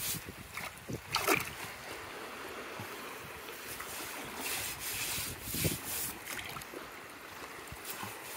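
Shallow water washing in and out over sand and broken shells at the shoreline, a steady wash with a couple of short splashes.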